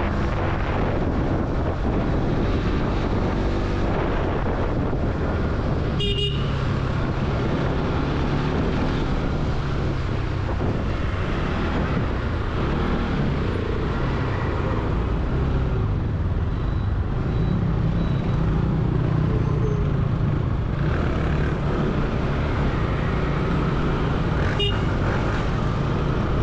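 Motorcycle engine running steadily under way, with wind and traffic noise around it. Two short horn toots, one about six seconds in and one near the end.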